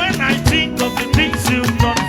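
Live band playing upbeat gospel praise music, with pitched instrument lines over a steady, fast drum beat.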